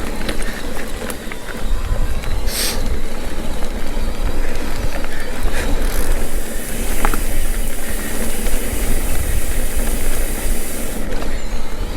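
Mountain bike rolling along a dirt trail: a steady rush of wind and tyre noise, heaviest in the low end, with scattered knocks and rattles and a brighter hiss through the middle.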